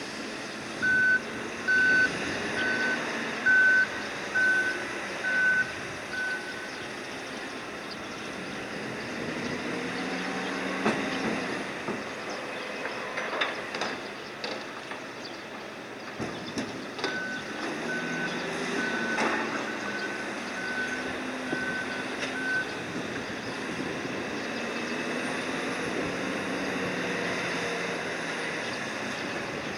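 Electronic warning beeper on cargo-handling machinery, sounding in two runs of about seven evenly spaced beeps over a steady machinery drone. A few sharp clanks fall between and during the runs.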